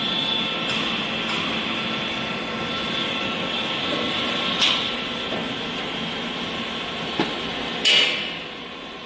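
Hyundai WIA LV1100 CNC vertical lathe running: a steady mechanical hum with a high whine. A few sharp clanks come through it, the loudest near the end, after which the running sound drops off.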